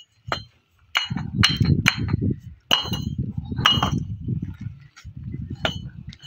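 Fired clay bricks dropped onto other bricks, giving about seven sharp, ringing clinks, over a low rumbling noise.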